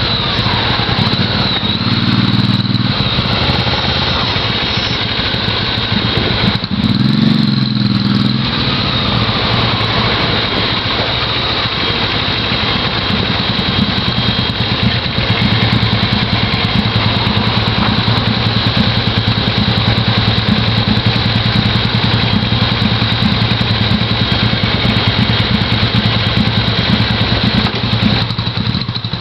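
Motorcycle engines idling, with two short surges in engine sound about two and seven seconds in.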